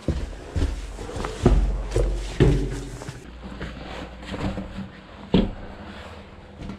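Irregular thumps, knocks and scuffs from footsteps and camera handling, over a low rumble; the loudest knocks come about a second and a half in, near halfway, and just past five seconds.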